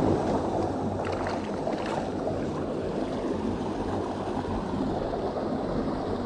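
Steady rushing of water pouring through a dam spillway.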